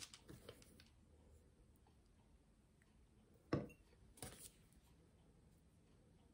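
Near silence with a few small handling taps from craft work on a tabletop: faint clicks at first, then two short, sharp taps about three and a half and four seconds in.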